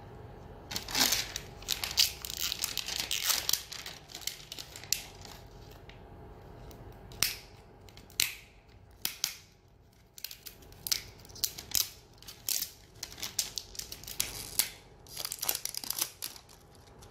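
Paper wrapping being peeled and torn off an L.O.L. Surprise Under Wraps toy capsule: irregular crackling, crinkling and ripping in bursts, with a brief lull about two-thirds of the way through.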